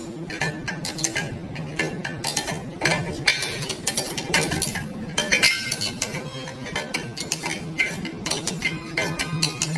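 Irregular metallic clinks and clicks over a low steady hum, like metal tools or parts being handled.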